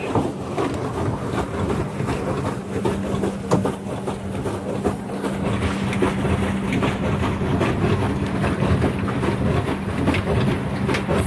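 Swan boat under way on the water: a steady low mechanical hum at one pitch with a rhythmic clatter over a low rumble.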